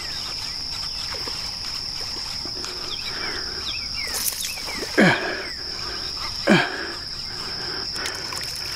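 Steady high-pitched insect buzz over still water, with a few faint bird chirps. About five seconds in, and again a second and a half later, two short loud sounds drop steeply in pitch.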